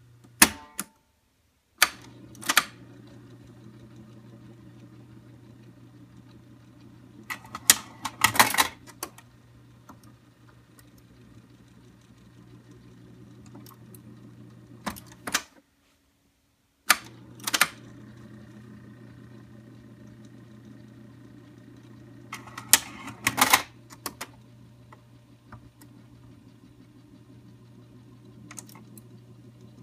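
Panasonic RS-295US cassette auto changer cycling its changer mechanism: a steady motor hum with mechanical clicks and clunks, and a loud rattling cluster about 8 s in and again about 23 s in. The hum stops for a second or so near the middle and restarts with a clunk.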